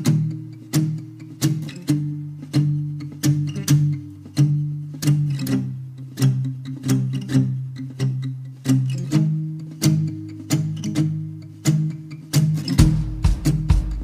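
Background music: evenly spaced plucked string notes, guitar-like, over held low notes, with a deeper bass coming in near the end.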